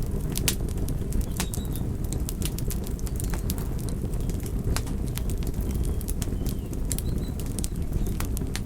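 Wood fire burning: a steady low rumble of flames with irregular sharp crackles and pops, several a second at times.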